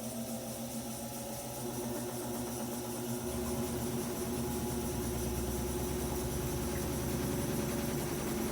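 Whirlpool top-loading washing machine running its drain and spin cycle, a steady motor hum. About three seconds in, a deeper hum joins and the sound grows gradually louder.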